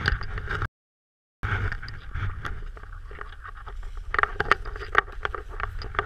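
Rustling and scraping of people moving about inside a snow cave, jackets brushing and snow being disturbed, with a cluster of sharper scrapes about four to five seconds in. The sound cuts out completely for a moment about a second in.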